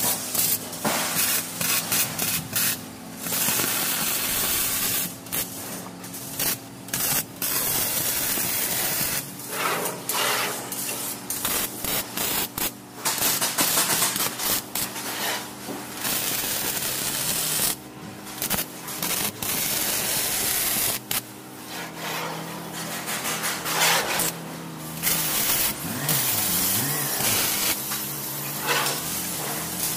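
MIG welding arc crackling and hissing on sheet metal, stopping and starting many times as short welds are laid, with brief gaps between them. A steady low hum runs underneath.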